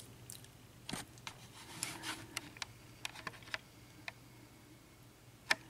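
Faint, irregular small clicks and taps from a lock and its parts being handled, with a sharper click near the end, over a faint steady low hum.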